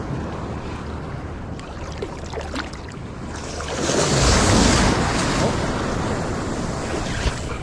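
Ocean surf washing around a person standing in shallow water. About three and a half seconds in, a wave surges and splashes up close, the loudest part, then settles back into a steady wash.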